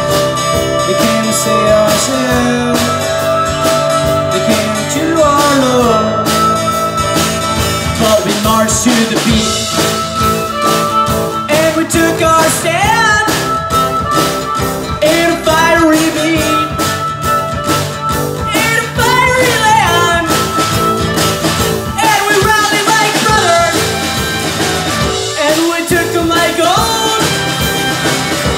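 Live blues-rock band playing an instrumental break: a harmonica plays a lead line of sliding, bent notes over strummed acoustic guitar, bass guitar and drums.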